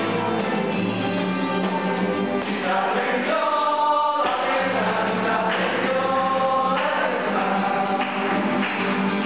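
A group of men and women singing a song together to an acoustic guitar.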